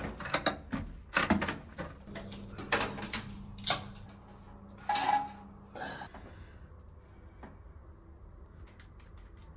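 Plastic clicks and knocks as toilet tank fittings and wiring are handled and pushed back into place. They are busy in the first few seconds, with one louder knock about five seconds in, then only faint scattered clicks.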